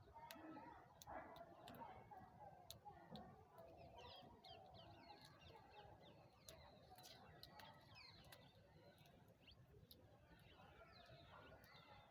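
Faint chirping of small birds, many short falling chirps, with scattered sharp clicks and a low murmur of distant voices underneath.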